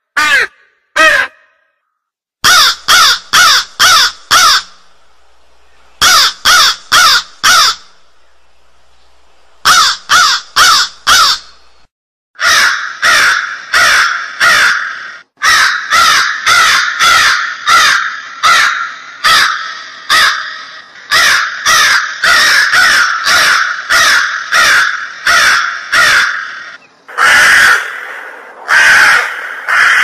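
Crows cawing in short runs of four or five caws with pauses of a second or two between runs; from about twelve seconds in, the caws follow one another almost without a break, two or three a second.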